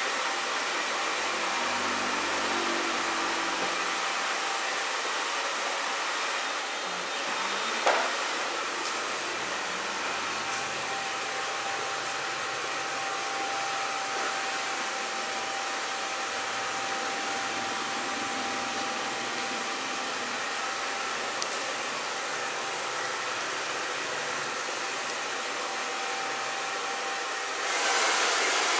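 Handheld hair dryer blowing steadily, a constant airy hiss with a faint steady whine; it gets louder about a second before the end. A single short click comes about eight seconds in.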